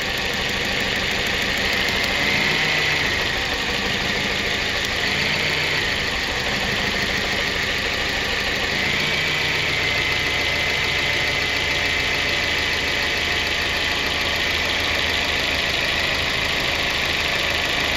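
Car engine idling steadily, heard up close in the open engine bay.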